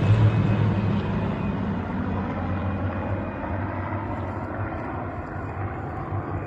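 A formation of Spitfires and Hurricanes flying away after a low pass, their massed V12 piston engines droning with a steady low hum. The sound fades gradually and grows duller as the aircraft recede.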